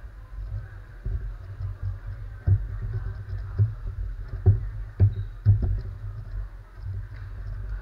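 Magnetic X-Man Galaxy Sculpted megaminx being turned fast in a speedsolve: a run of small turning clicks with dull knocks about once a second as the puzzle and hands bump down on the table.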